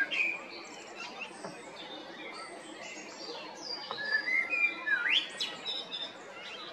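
Male Eurasian blackbird singing: a whistled phrase right at the start and another about four seconds in, with higher twittering notes between and after.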